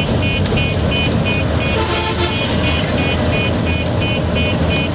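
A truck's diesel engine idles steadily under a rapid electronic beeping, about three short high beeps a second. A brief horn toot sounds about two seconds in.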